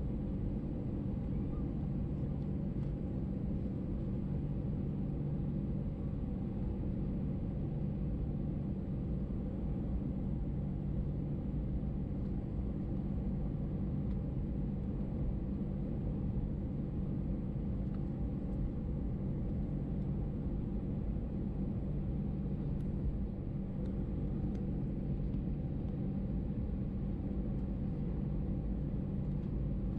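Cabin noise of an Airbus A320 taxiing after landing: a steady low rumble with a low hum from the engines at idle and the cabin air.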